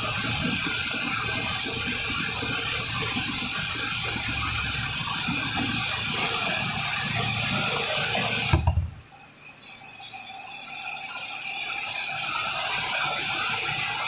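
Steady rushing of water and machinery. A few sharp knocks come about eight and a half seconds in, then the sound drops away abruptly and slowly swells back.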